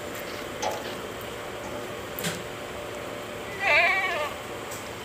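A goat bleats once near the end, a single wavering call over steady background noise.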